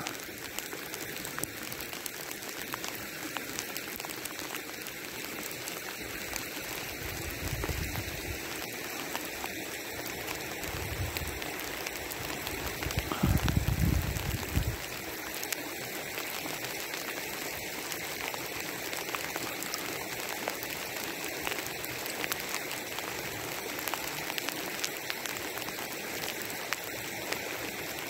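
Steady hiss of water peppered with fine ticks, with a few low muffled thumps about 8 seconds in and again between 13 and 15 seconds.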